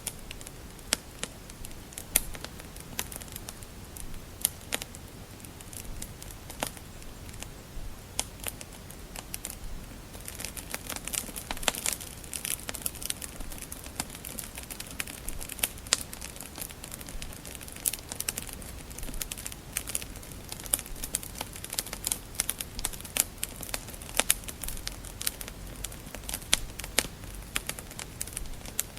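Wood fire crackling in a fireplace: irregular sharp pops and snaps over a steady low hiss, thickening into a denser run of crackles about a third of the way in.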